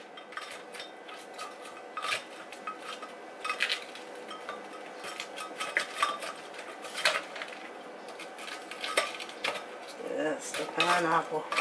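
A spatula scraping and knocking inside a blender jar, pushing around chunks of frozen pineapple: irregular scrapes and clicks. The fruit is frozen hard enough to stall the blender, so it is being stirred by hand.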